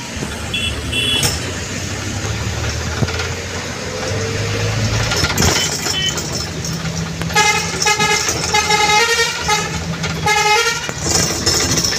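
Busy city street traffic: vehicle engines running, and past the middle a horn honks in a quick series of short blasts for a few seconds.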